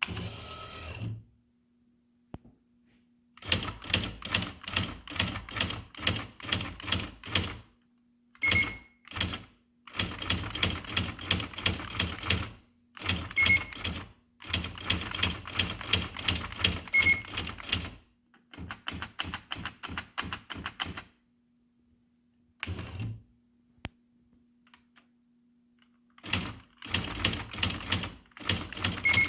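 IBM Wheelwriter 15 Series II electronic typewriter printing in runs of rapid printwheel strikes lasting a few seconds each, with pauses between, over a steady low hum from the running machine. A few short beeps sound among the runs.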